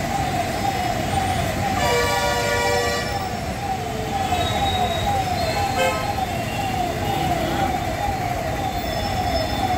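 Emergency-vehicle siren wailing in a fast, even cycle of falling sweeps, about two a second, over the rumble of road traffic. A vehicle horn sounds for about a second around two seconds in, and a short toot comes near six seconds.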